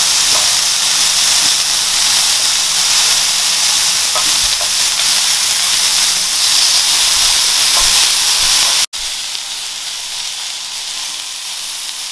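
Chicken seekh kebabs sizzling in oil on an electric griddle: a steady frying hiss, with a few faint clicks of metal tongs turning them. About nine seconds in, the sizzle cuts out for an instant and comes back quieter.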